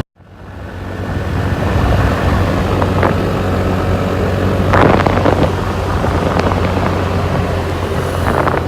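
Motorbike engine running at a steady pace under way, fading in just after the start, with a brief louder rush of noise about five seconds in.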